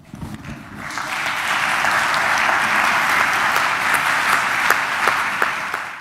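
Audience applauding, building up over the first second and then holding steady with many overlapping claps.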